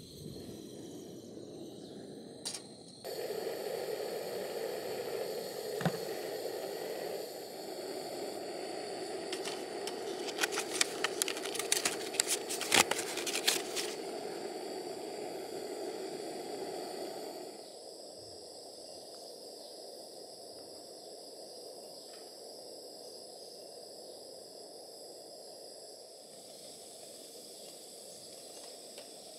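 A click, then a gas stove burner catches about three seconds in and burns with a steady rushing hiss. A run of sharp metallic clicks and rattles comes in the middle, and after about two-thirds of the way through the burner hiss is lower.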